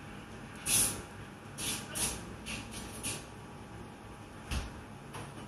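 Café ambience: steady room noise broken by about half a dozen brief sharp noises, the loudest about a second in, with a low thump near the end.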